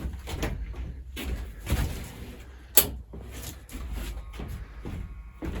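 Scattered knocks and clicks of hands handling equipment and cables, with one sharp click about three seconds in. A faint steady high tone begins near the end.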